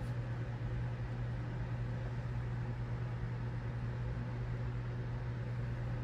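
A steady low hum under a constant hiss: background room noise.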